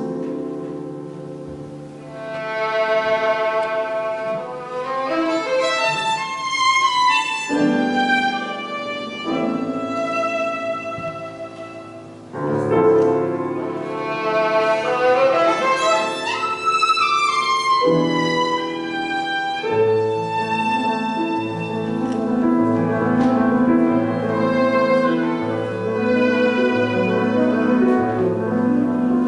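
Solo violin playing a slow, lyrical melody of long held and gliding notes. From about eighteen seconds in, a repeating low accompaniment figure runs beneath it.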